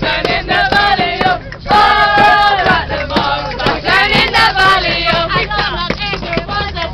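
A group of men and women singing loudly together, with maracas shaken along in a quick, uneven rattle.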